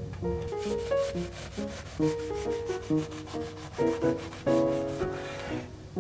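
A knife sawing through a loaf of soft white bread: a fast, rasping scrape as the blade works through the crust, ending near the end. Soft piano music plays throughout.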